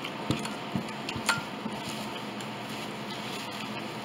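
A few soft knocks and clicks in the first second or so over a faint steady hum: handling noise as the camera is picked up and moved.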